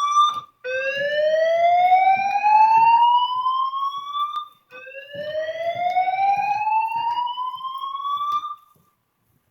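Building fire alarm sounding a slow-whoop signal: a loud tone that rises in pitch over about four seconds, twice in a row. It stops a little before the end.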